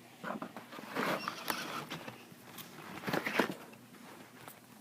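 Handling noise: a firework shell and its packaging being set down and picked up, with rustling and light knocks, loudest about a second in and again around three seconds in.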